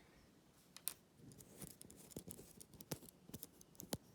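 Faint, irregular small clicks and taps of a bottle cutter kit's screws, nut and metal parts being handled and fitted together.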